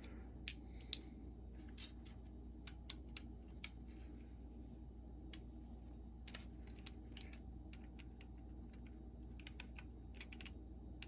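Faint, irregular small plastic clicks and taps from handling a cassette Walkman, over a low steady background hum.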